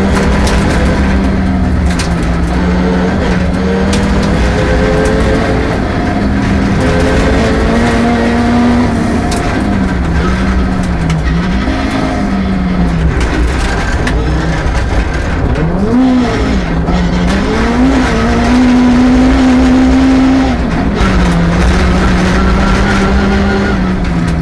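Rally car engine at full load on a stage, its revs climbing and dropping again and again through gear changes and corners, loudest on a long high-rev pull about 18 to 20 seconds in before easing off.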